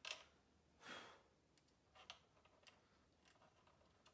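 Near silence with faint clicks and ticks of small metal shotgun parts being handled, the sharpest click just at the start and a short soft rush of noise about a second in.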